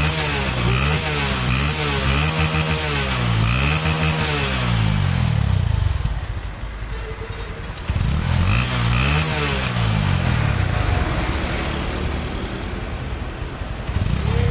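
Fuel-injected motorcycle engine being revved in quick repeated blips, about one a second, then dropping back to idle. It revs up again a few times before settling, as is done while checking a tune-up.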